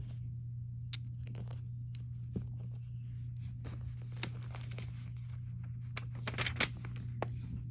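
Small plastic Lego pieces being handled and fitted together: scattered sharp clicks with light rustling, a few clicks clustered near the end, over a steady low hum.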